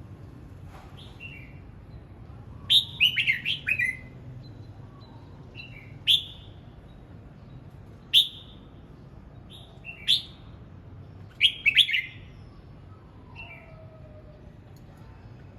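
Red-whiskered bulbul singing short, bright whistled phrases: a run of several quick notes about three seconds in, then single phrases every two seconds or so, and a quick pair of phrases near the end.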